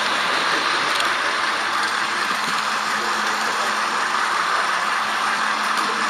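Steady whirring running noise of an H0-scale model locomotive travelling along the track, heard from on board the train.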